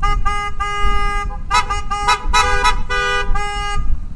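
Car horns honking in a string of about ten short and long blasts from passing cars, with two horns of different pitch sounding together about halfway through, over a low rumble.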